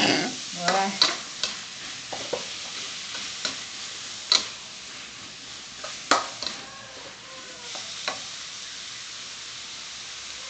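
Minced pork and chillies sizzling in a hot wok while a metal spatula scrapes and clacks against the pan. There are several sharp knocks through the first eight seconds or so, then only the steady sizzle.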